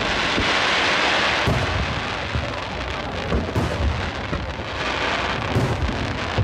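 Aerial fireworks shells bursting overhead: low booms throughout, a dense crackling hiss for the first second and a half, and sharp cracks about every two seconds.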